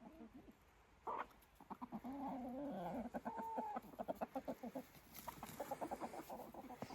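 Backyard chickens clucking, several birds overlapping: a sharp call about a second in, longer drawn-out calls over the next few seconds, then a run of quick short clucks.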